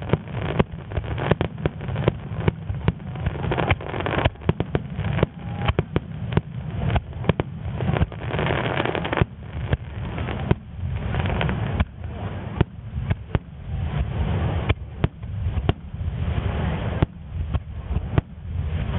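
Vesuvius super starmine fireworks: aerial shells launched and bursting in rapid succession, with sharp bangs several times a second over a continuous deep rumble.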